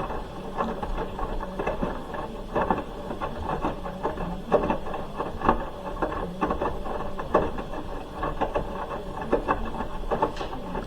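Hoover H-wash 300 Plus front-loading washing machine mid-wash: the drum turning with a knock or slosh from the tumbling load about once a second over a steady low hum.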